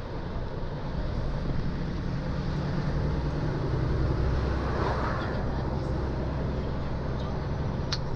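MAN truck's diesel engine running under way, heard inside the cab, with road and tyre noise; the engine note grows louder about a second in. A single sharp click just before the end.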